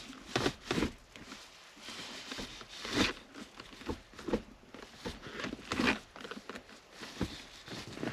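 Irregular clicks, light knocks and rustles from something being handled, with no engine running; the louder ones come about three and six seconds in.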